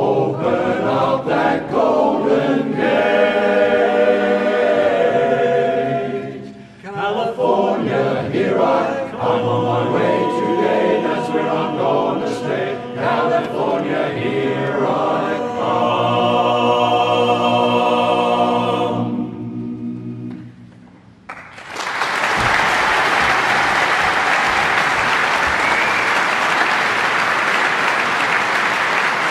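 Men's barbershop chorus singing a cappella in close harmony, closing on a long held final chord that fades away. After a brief pause, about two-thirds of the way in, the audience breaks into loud, steady applause.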